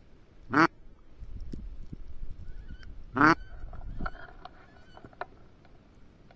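Two loud single duck quacks about three seconds apart, each short and raspy, with a few faint short calls after the second.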